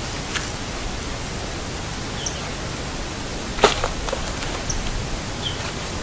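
Steady outdoor background noise with a faint, high, pulsing tone. A few short high chirps and a single sharp rustle or click about three and a half seconds in.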